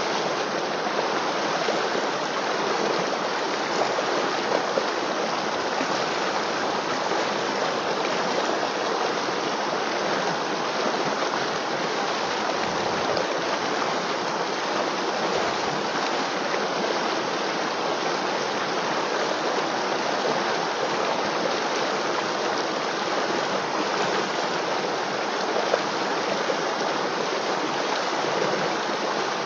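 River water flowing, a steady, even rush of running water that does not let up.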